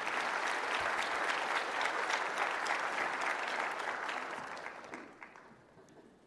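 Large audience applauding, building quickly and then fading away over the last couple of seconds.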